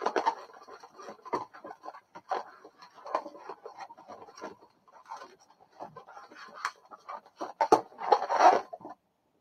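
Latex modelling balloons squeaking and rubbing against each other as hands weave and twist them. The squeaks come in irregular bursts, loudest near the end, and stop abruptly just before the end.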